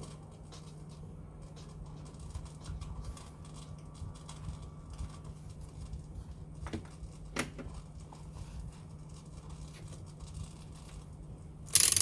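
Soldering work at a repair bench: a steady low hum under scattered light ticks and clicks of tools on circuit boards, with two sharper clicks in the middle. Near the end comes a short, loud scraping clatter as the soldering iron goes back into its stand.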